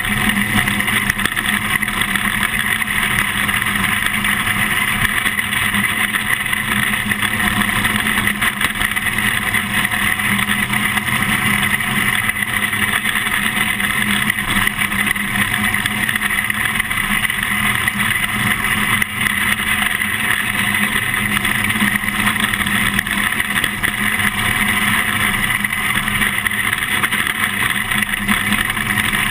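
Engine of a small winged dirt-track race car running steadily as it laps, recorded onboard from the cockpit.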